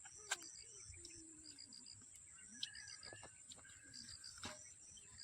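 Faint crickets or similar insects shrilling steadily, with higher chirps repeated in short groups of three or four. A few sharp clicks stand out, the loudest about a third of a second in and again near the end.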